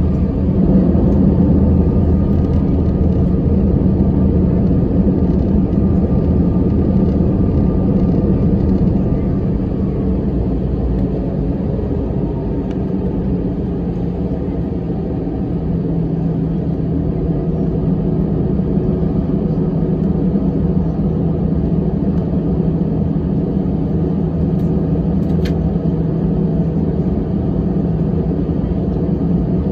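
Cabin noise inside an Airbus A320-200 taxiing: the jet engines at low taxi power give a steady hum with a low drone. A short click sounds near the end.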